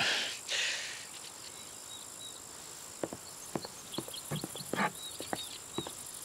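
Outdoor evening ambience of crickets chirping, opening with a short soft rustle, then a run of light irregular clicks or steps from about halfway through.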